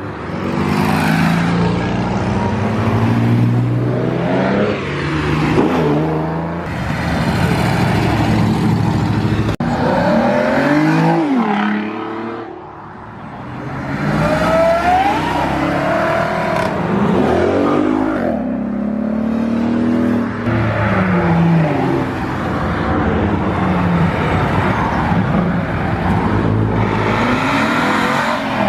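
Several performance cars accelerating hard one after another as they drive away, their engine notes rising and falling in pitch as each revs and passes.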